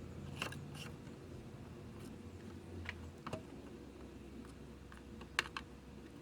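Scattered light clicks and taps, a handful spread across a few seconds, over a faint steady hum that drops out about halfway through.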